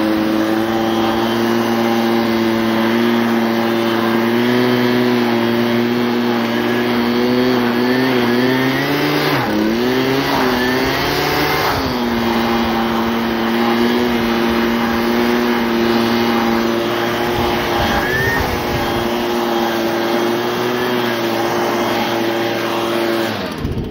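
Gas handheld leaf blower running loud and steady at high throttle, blasting snow off a railroad switch. Its engine speed wavers and rises briefly around the middle, and it cuts off just before the end.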